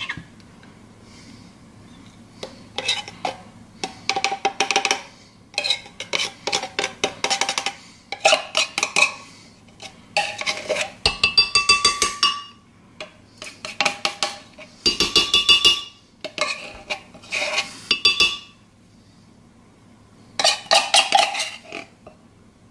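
A metal spoon scraping and knocking inside an opened tin can of sweetened condensed milk. It comes in about eight bursts of quick clinks with a metallic ring, each a second or two long, with short pauses between.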